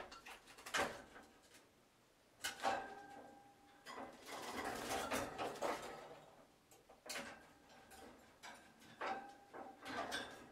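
Rainbow lorikeet bathing in a small cage: irregular bursts of splashing and wing-fluttering, a longer flurry about four to six seconds in, separated by short pauses.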